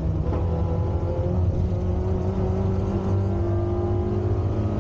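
Peugeot 106 Rallye rally car's four-cylinder engine pulling hard through one gear, heard from inside the cabin, its pitch rising steadily as the car accelerates.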